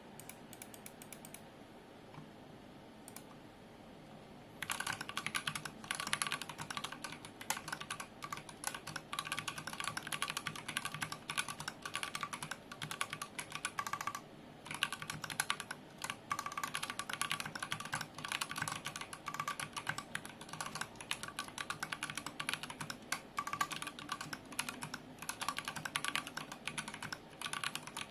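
Typing on a UniGo66 mechanical keyboard fitted with stock Durock T1 tactile switches and GMK keycaps: rapid, continuous keystrokes that begin about four and a half seconds in, with a short pause about halfway through.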